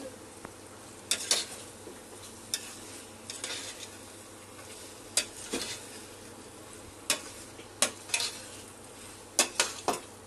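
A utensil stirring chicken in masala in a stainless steel pot, clinking and scraping against the pot about ten times at irregular intervals, with a faint sizzle of the frying underneath.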